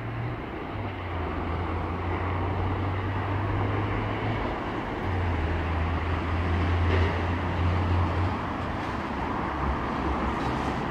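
Diesel locomotive engine running out of sight: a steady rumble with a low hum that drops away for a moment about four seconds in and fades after about eight seconds.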